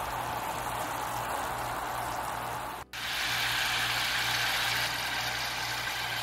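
Coconut cream boiling and sizzling in a pan as its water cooks off and the coconut oil separates out, a steady bubbling hiss. It drops out for an instant about three seconds in, then comes back brighter and louder.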